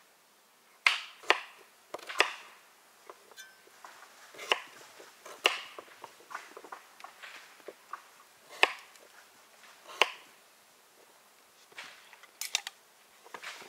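Kitchen knife cutting raw pumpkin into cubes on a wooden cutting board: irregularly spaced sharp knocks of the blade meeting the board, with quieter clicks between.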